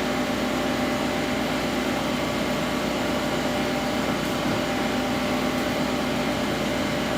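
Steady machine hum with several constant tones, unchanging in level.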